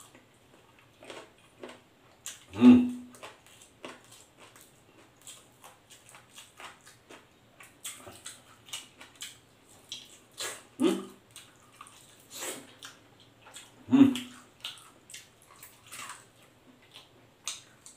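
Close-up eating sounds of fried chicken and rice eaten by hand: a steady run of small crunches, clicks and wet lip smacks, with three louder mouth sounds about 3, 11 and 14 seconds in.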